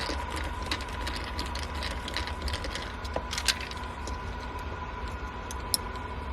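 Scattered light clicks and ticks of hands working on the old doorbell as its two wires are disconnected, over a steady low hum and a faint steady high tone.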